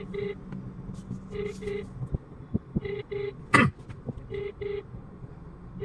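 Outgoing phone call ringing, a short double beep repeating about every second and a half while waiting for an answer, over a low steady hum. One loud thump breaks in about three and a half seconds in.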